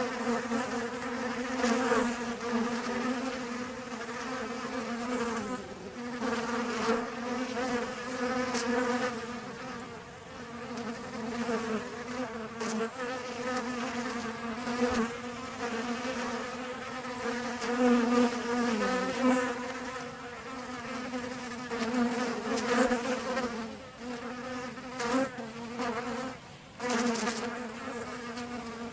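Honeybees buzzing in flight around a honey-baited flower, their overlapping wingbeat hum wavering in pitch and swelling and fading as they come and go, dropping away briefly a few times.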